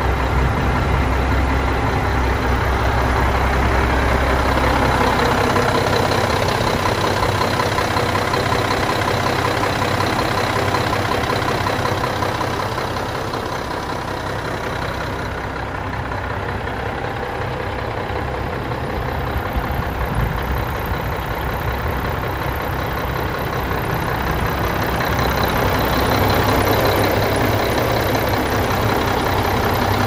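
Diesel engine of a 1993 Mack RD688S dump truck idling steadily. A low rumble is strongest for the first few seconds, the sound dips in the middle, and it grows louder again near the end.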